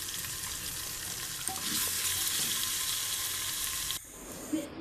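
Onion, garlic and ginger paste with ground spices sizzling in hot oil in an aluminium pot while being stirred with a wooden spatula: the spices are being fried down (kosha) as the base for a beef curry. The sizzle grows a little louder about a second and a half in and cuts off near the end.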